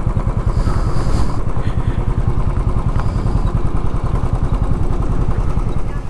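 Royal Enfield Bullet 350's single-cylinder engine running at a steady pace as the motorcycle rides a rough dirt road, a dense low pulsing throughout.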